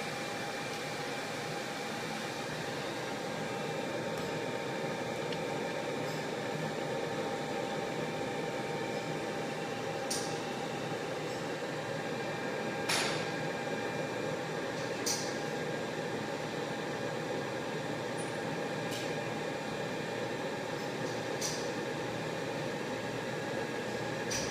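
Laser marking machine running as it engraves a stainless steel mug: a steady whirring hum with a faint thin whine, broken by a few sharp clicks.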